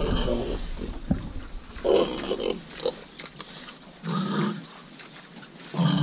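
Pen of young grower pigs calling: about four short grunts and squeals a second or two apart.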